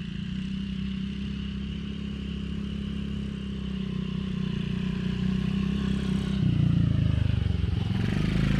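Small vehicle engine running steadily and growing louder; about six and a half seconds in its pitch drops and it gets louder still.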